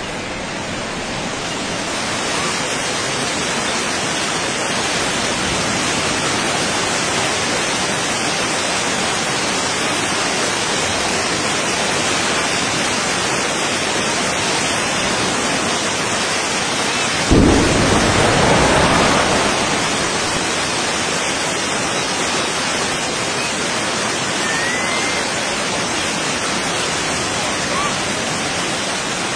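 Steady roar of rushing water and spray, like torrential rain, from a nuclear test under the sea throwing up its column of water. About 17 seconds in comes a sudden deep boom that rumbles away over a couple of seconds.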